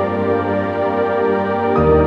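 Calm new-age background music of sustained, held tones, its low bass note changing near the end.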